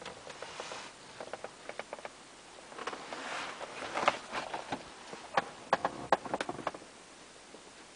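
Handling and movement noise inside a car cabin: scattered clicks and rustling, a brief hiss about three seconds in, then a cluster of sharper clicks before it settles.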